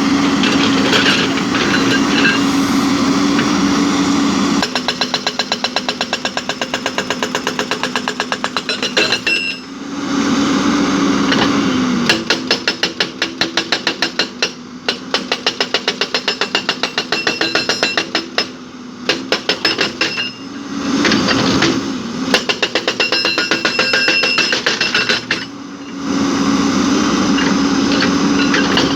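Heavy earthmoving machine's diesel engine running, with three long runs of rapid, evenly spaced metallic hammering of roughly ten knocks a second. Between the runs the engine rises briefly, twice.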